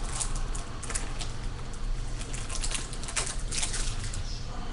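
Trading cards being flicked and slid through by hand, an irregular run of quick papery snaps and rubs over a steady low hum.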